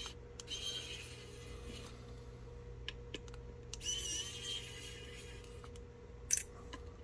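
Mini electric precision screwdriver running in two short runs of about a second and a half each, its small motor whirring as it backs out screws, with a few light clicks between.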